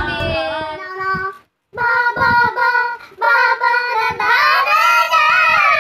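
High-pitched voices singing, holding long notes, broken by a brief total dropout about one and a half seconds in.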